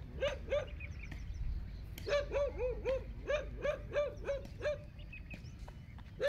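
Mudhol hound puppy whimpering: short, arching whines, two or three near the start, then about nine more in quick succession from about two seconds in.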